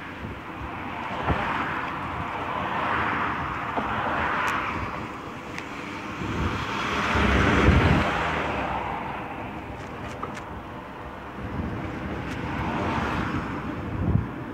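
Wind rushing over the microphone and road rumble from a moving cargo bike on a city street, swelling and fading several times, loudest about halfway through.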